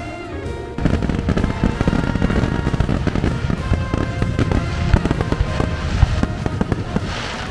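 Aerial fireworks going off: a dense run of rapid cracks and pops that starts about a second in, over background music.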